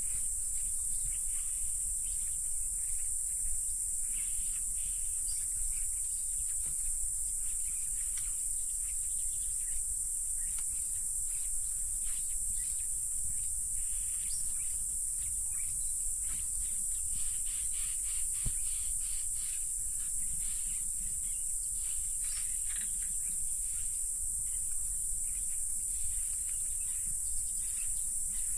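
Steady, high-pitched insect chorus droning without a break, with scattered short clicks and ticks throughout.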